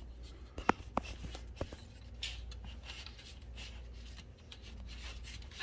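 A few sharp clicks in the first couple of seconds, then soft rustling and rubbing: a road bike's front wheel being handled and turned by hand to wake its speed sensor.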